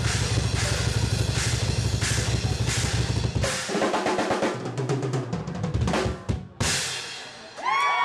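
Live drum kit solo: fast bass drum strokes under regular cymbal crashes. About three and a half seconds in, it turns into rapid rolls around the snare and toms, then a final hit. Cheering and whoops from a crowd start near the end.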